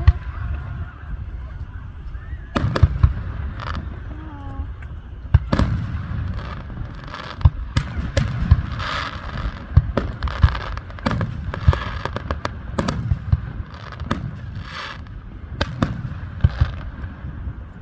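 Fireworks display: aerial shells bursting in a run of sharp booms, about one every second or two, with crackling between the bangs.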